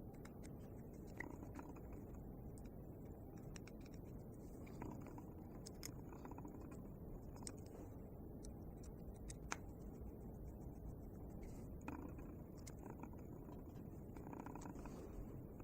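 Faint scattered clicks and taps of small metal engine parts and hand tools being handled during reassembly of a miniature model diesel engine, over a steady low background hiss.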